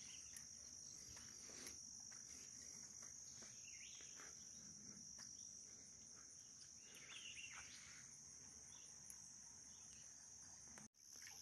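Near silence with a faint, steady high-pitched insect chorus droning without a break, and a couple of faint ticks.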